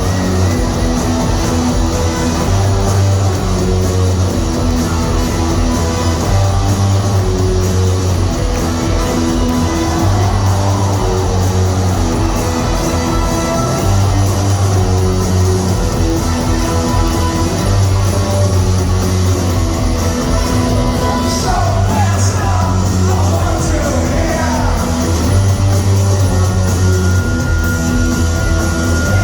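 Live rock band playing amplified in a concert hall: electric guitar, bass and drums going round a repeating riff.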